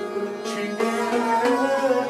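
Harmonium and an upright bowed string instrument playing an instrumental passage of Sufi devotional music (kalam), with steady held chords under a wavering bowed melody.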